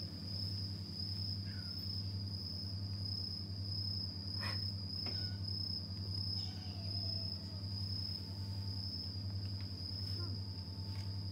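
A steady high-pitched whine over a low, even hum, unchanged throughout, with a faint click about four and a half seconds in.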